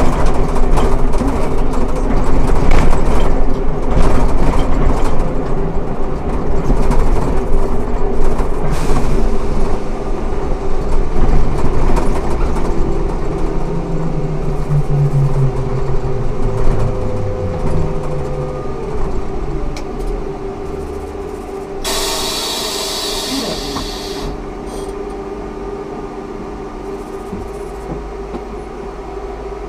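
Ikarus 280T trolleybus with GVM electrical equipment running, its traction motor whine falling in pitch and the running noise dying away as it slows down. About two-thirds of the way in comes a short hiss of compressed air.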